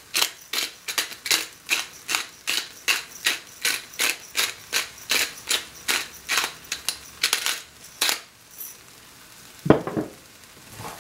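Hand-twisted pepper grinder cracking black peppercorns, a steady run of ratcheting clicks, about two or three a second, that stops about eight seconds in. Two sharp knocks follow near the end.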